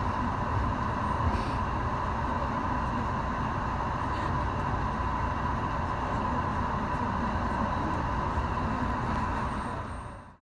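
Cabin sound of an E653-series limited express electric train drawing slowly into a station platform: a steady rumble of wheels on rail with a steady whine. It fades out near the end.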